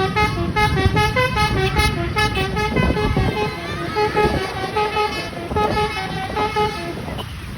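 Indonesian 'telolet' bus horn playing a quick tune of short, stepped notes over a low rumble.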